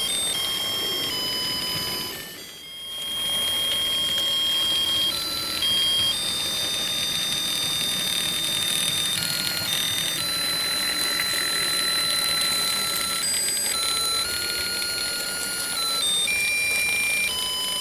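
A simple electronic tune of plain beeping tones, several notes sounding together and changing step by step. It dips out briefly about two and a half seconds in.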